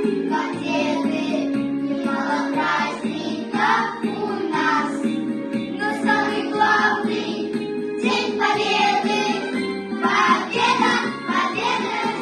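Children's vocal ensemble singing together over instrumental accompaniment.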